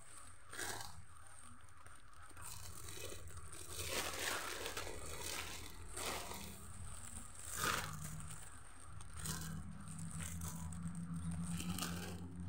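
Foil letter balloons crinkling and rustling as they are handled and unfolded, in repeated bursts every second or two.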